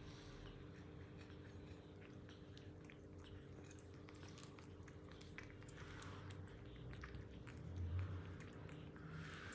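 Faint chewing, with many small crunchy clicks, over a steady low hum; a soft low bump about eight seconds in.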